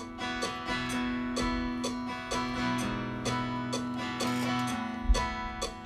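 Instrumental break of a band's song: strummed guitar over a steady drum beat, with a heavy low hit about five seconds in.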